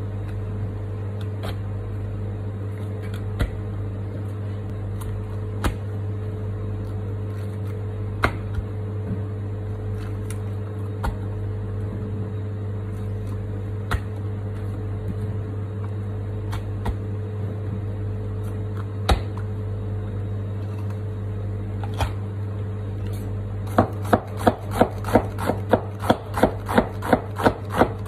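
A wide-bladed cleaver cuts red capsicum on a plastic cutting board over a steady low hum. It makes single knife strokes every few seconds. Then, from about four-fifths of the way through, it chops rapidly and evenly at about four strokes a second, slicing the capsicum into thin strips.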